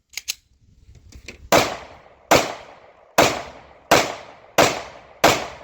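A pistol firing six rapid shots in a Bill drill string, each report sharp with a short echoing tail, evenly paced a little under a second apart. A few faint clicks come just before the first shot.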